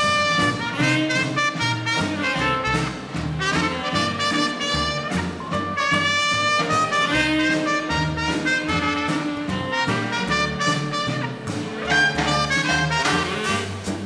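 Small-group swing band playing live: saxophone and trumpet carry held melody lines over a rhythm section of piano, guitar, bass and drums keeping a steady swing beat.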